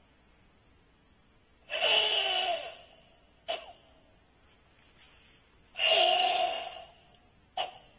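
Forceful ibuki breathing of a karateka performing Tensho kata: two loud breaths about a second long, each followed by a short sharp sound, repeating about every four seconds.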